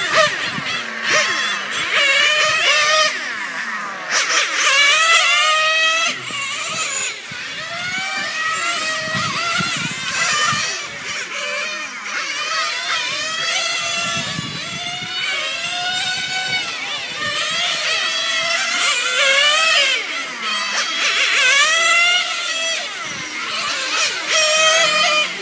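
Novarossi nitro (glow) engine of a radio-controlled on-road racing car running at high revs on the track. It makes a high whine that rises and falls over and over, about once every second or two, as the car accelerates and lifts off around the circuit.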